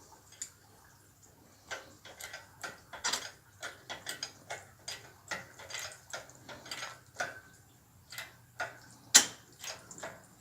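Irregular small metallic clicks and ticks from belt-test hardware being handled and set up, with one sharp, louder click about nine seconds in.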